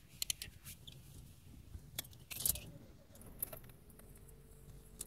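Scattered small clicks and taps with a louder rustle about two and a half seconds in: handling noise from a phone held up to film.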